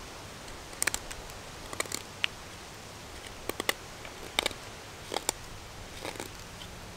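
Knife whittling a green wooden stick: a series of short, sharp cuts of the blade into the wood at irregular intervals.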